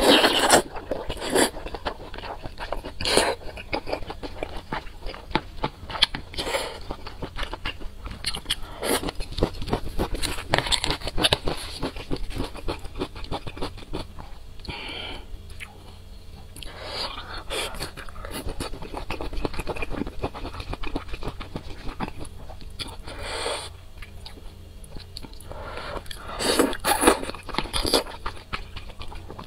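Close-miked eating sounds: a loud noodle slurp at the start, then wet chewing and crunching of spicy hot-pot food, with chopsticks scraping and clicking in the plastic tray.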